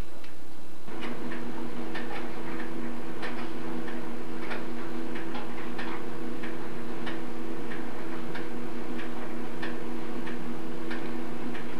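Regular ticking, about one and a half ticks a second, like a clock. A steady low hum comes on about a second in and continues under it.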